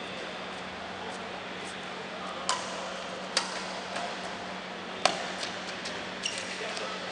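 Badminton rally: racket strings striking the shuttlecock, four sharp hits starting about two and a half seconds in, a second or so apart, with fainter taps between them, over a steady low hum.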